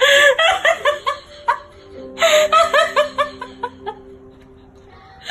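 A person laughing hard in quick, high-pitched ha-ha bursts, two long runs of about five laughs a second, trailing off before a short fresh burst at the end.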